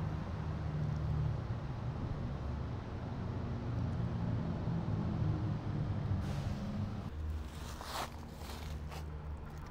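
Dry cat kibble rattling as it is poured from a can onto concrete, starting about six seconds in and strongest around eight seconds, over a steady low rumble.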